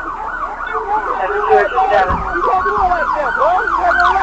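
Police siren in fast yelp mode: a rapid rising-and-falling wail of several sweeps a second, growing slightly louder.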